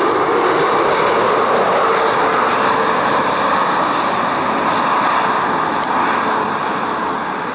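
Boeing 747-8's four GEnx turbofan engines on final approach, a loud steady jet roar with a faint whining tone in it. The roar starts to fade near the end as the airliner moves away.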